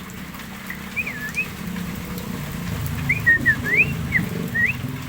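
Javan myna (jalak kebo) giving short whistled notes that swoop up and down, a few about a second in and then a quicker run of about seven from about three seconds in, over a low steady hum.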